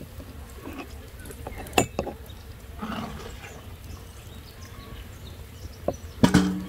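Wooden spoon knocking against a glass jar and a cast-iron pan while thick flower jam is spooned into the jar: a few separate sharp knocks, the loudest cluster near the end with a short ring.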